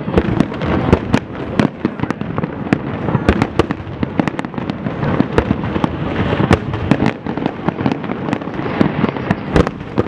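A fireworks display going off continuously, with many sharp bangs several times a second over a constant rumble and crackle of shells bursting.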